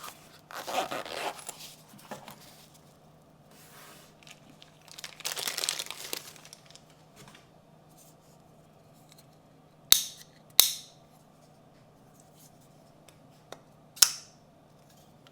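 Packaging being torn and crinkled while a Sencut Vornix folding knife is unboxed, in two stretches of rustling, followed later by three sharp clicks, two close together and one a few seconds after.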